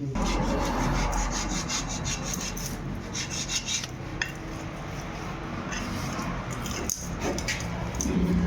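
Rapid, repeated scraping strokes of a tool rubbing on a water pump part, with a steady low hum underneath.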